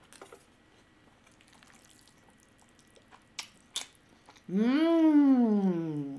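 Quiet chewing of a mouthful of sushi roll, with a couple of sharp clicks a little past three seconds in. About four and a half seconds in comes a long closed-mouth "mmm" of enjoyment, the loudest sound, rising and then falling in pitch.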